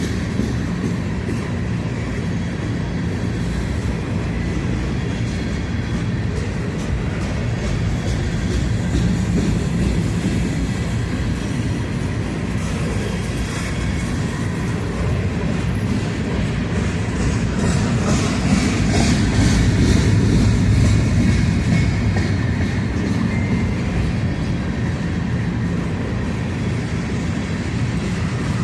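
Empty freight train grain hopper cars rolling past at low speed, steady rumble of steel wheels with a clickety-clack over the rail joints, swelling a little about two-thirds of the way through.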